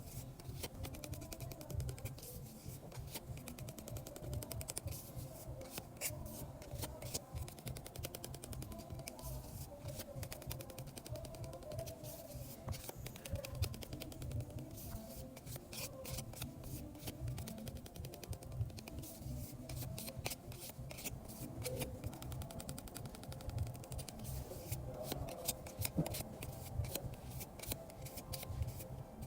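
Background music, with many sharp clicks over it.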